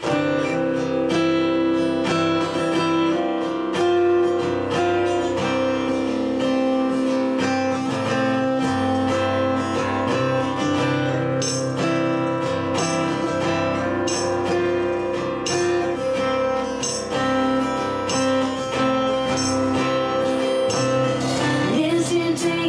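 Live band playing an instrumental passage: acoustic guitar strumming with electric guitars and drums, the cymbal strikes coming in stronger from about halfway.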